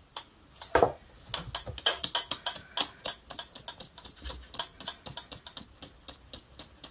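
Stainless steel mesh sieve being shaken and tapped over a metal mixing bowl to sift flour: a quick run of light metallic ticks, about four a second. A louder knock comes just before, as a cup of flour is emptied into the sieve.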